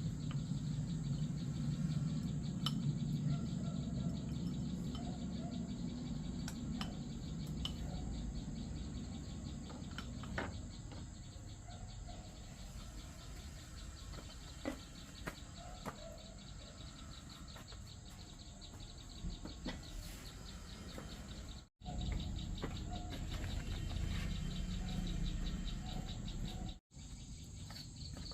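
Outdoor rural ambience: insects trilling in fast, even ticks, with occasional bird calls and scattered clicks and knocks over a low steady rumble. The sound cuts out briefly twice near the end.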